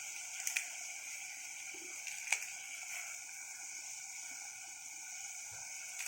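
Sorrel leaves being torn by hand and dropped into a pot of water: a few faint clicks and taps, one about half a second in and another a little after two seconds, over a steady background hiss.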